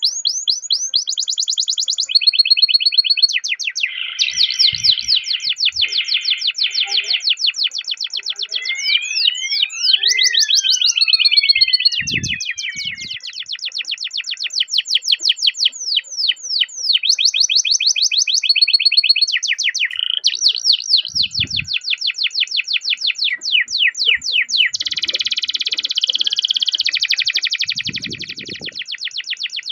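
Domestic canary singing a long, unbroken song of rapid repeated trills ('ngerol'), switching to a new tour every second or two. About ten seconds in come a few sweeping whistle notes.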